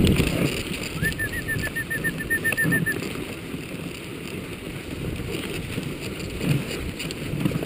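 Dog sled moving along a packed snow trail behind a husky team: a steady rough rumble of the sled and team over the snow. About a second in, a quick even run of about a dozen short high peeps lasts some two seconds.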